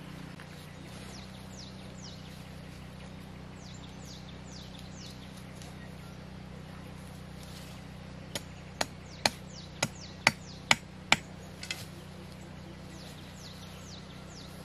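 A tent stake being hammered into the ground with a knife: about eight sharp knocks, roughly two a second, a little past the middle, with birds chirping throughout.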